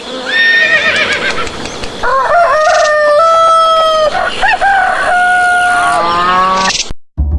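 Roosters crowing, several long crows one after another and overlapping at different pitches, cutting off suddenly near the end.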